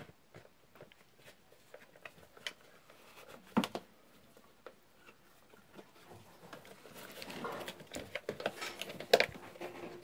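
Light clicks and rustling of plastic parts being handled and fitted together as the switch and plastic end cap go back onto a wall fan's motor housing: scattered faint clicks, one sharper knock about a third of the way in, and busier handling noise in the last few seconds.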